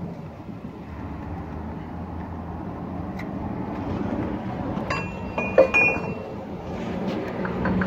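Metal clinking as a gear and tools are handled against the ISX engine's gear train: a faint click about three seconds in, then a quick cluster of sharp, ringing clinks about five to six seconds in, over a steady low rumble.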